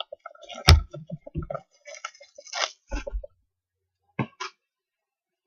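A sealed box of basketball trading cards being handled and opened: a sharp knock about a second in, then plastic wrap crackling and crinkling, and a couple of clicks near the end.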